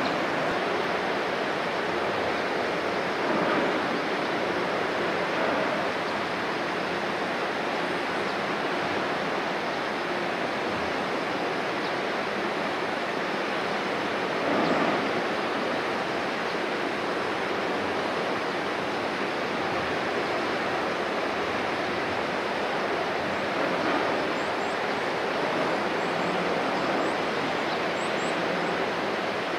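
Steady rushing of water churned along the hull of a passing container ship, swelling briefly now and then.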